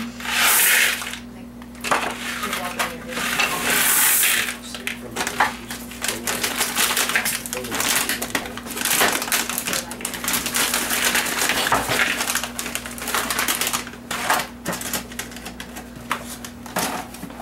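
Dry snack pieces being poured from boxes and bags into a big bowl: a continuous clatter and rattle of hard bits landing, with bursts of crinkling packaging near the start and about four seconds in.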